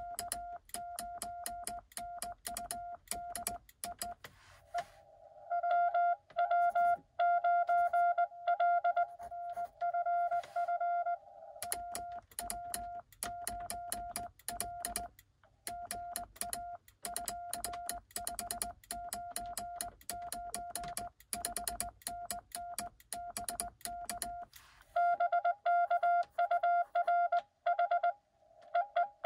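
Morse code exchange heard through a Xiegu X6100 transceiver. The operator sends with a cootie (sideswiper) key: a tone of about 700 Hz keyed on and off, with the key's contacts clicking along. A louder received Morse signal, with no key clicks, answers about five seconds in and again near the end.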